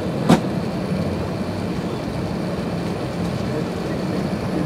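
Steady engine and rolling noise inside the cabin of an Airbus A380 moving slowly on the ground, with one sharp knock about a third of a second in.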